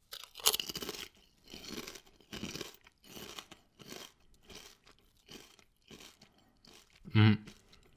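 Crunchy potato chips being chewed with the mouth close to the microphone: a loud first crunch, then about one crunching chew every two-thirds of a second, growing fainter. Near the end a short, loud, low sound comes from the eater's throat.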